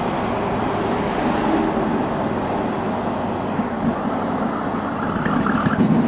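Homemade propane burner firing into a small furnace with a steady rushing noise of gas and flame. It turns louder and more uneven about five seconds in, while the burner tube is being adjusted.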